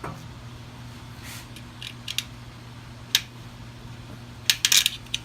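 Scattered small metal clicks and taps as an Allen bolt is fitted and threaded into the oil filter cover of a motorcycle engine, with a quick run of clicks near the end, over a steady low hum.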